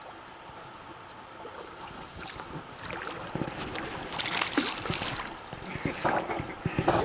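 Soft, steady river and wind noise, then irregular rustling and knocking from the camera being handled, growing louder through the second half.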